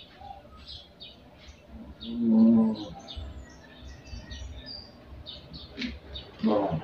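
Small birds chirping over and over, short high chirps. A louder, low, drawn-out moan-like sound lasts about a second, starting about two seconds in.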